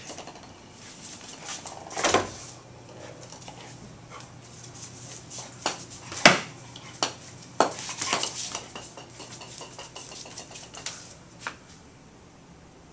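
A golf ball batted about by a dog, clacking and skittering on a tile floor: a scattered string of sharp clicks and knocks, the loudest about six seconds in.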